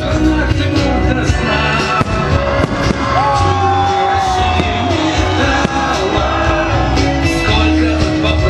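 Loud music with singing over a steady bass beat, with fireworks shells bursting through it.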